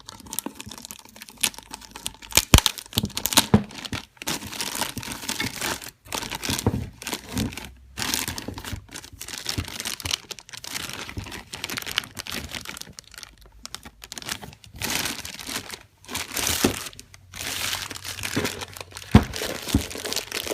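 Plastic packaging crinkling and rustling as it is unwrapped and handled, in irregular bursts, with a couple of sharp knocks.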